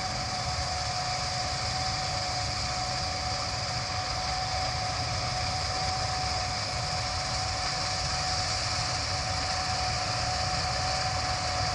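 Gleaner S77 combine harvester running steadily while cutting soybeans: an even machinery drone with a constant whine.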